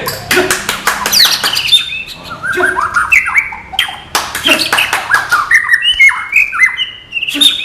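White-rumped shama singing a fast, varied song of whistled notes, quick rising and falling glides and sharp clicking chirps.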